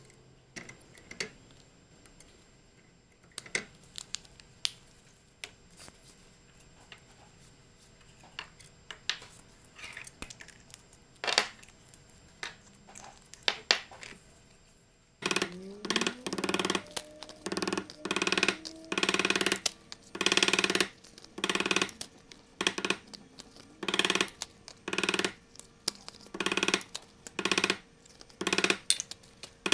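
Lever hand press setting brass fasteners in leather, with scattered sharp clicks and metal clunks. About halfway through, drum-heavy background music with a steady beat comes in and takes over.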